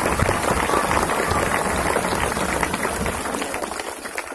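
Crowd clapping and shouting over the low rumble of a Sonalika tractor's diesel engine running; the rumble drops away about three seconds in.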